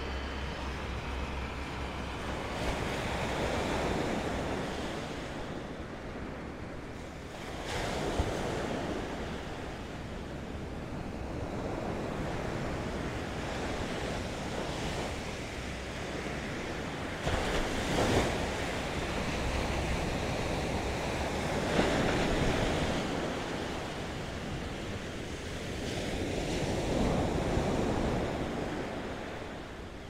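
Ocean surf breaking on a beach, the wash of noise swelling and fading every few seconds as waves come in, with wind rumbling on the microphone.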